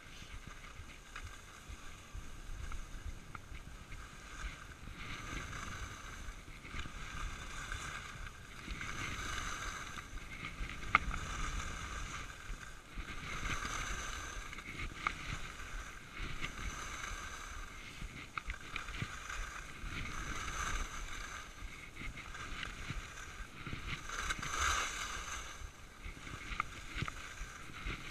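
Skis hissing and scraping over groomed piste snow, swelling and fading every second or two, over a low rumble. A single sharp click about eleven seconds in.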